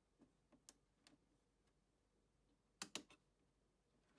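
Light clicks and taps from a hand handling a model railway layout, with a quick run of three or four sharper clicks near the end as the hand reaches the layout's built-in controller panel.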